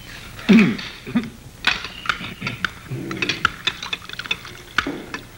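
Dishes, cutlery and glasses clinking and tapping at a dinner table in many short sharp clicks, with brief voice sounds about half a second and a second in.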